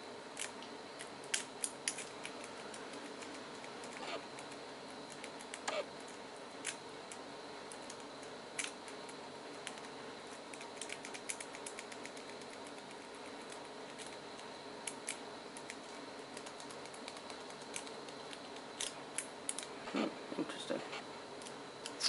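Metal rake pick scraping in and out of a six-pin solid brass padlock's keyway against a tension wrench, setting the pin tumblers: irregular light clicks and scrapes over a steady faint hiss, busier near the end.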